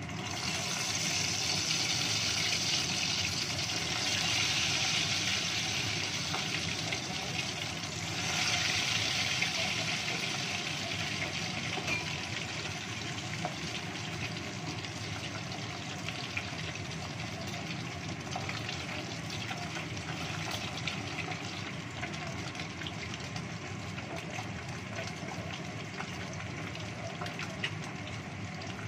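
Hot oil sizzling as chicken wings deep-fry in a saucepan. The sizzle starts suddenly and loud as the pieces go into the oil, surges again about eight seconds in, then settles into a steady frying sizzle with many small crackles.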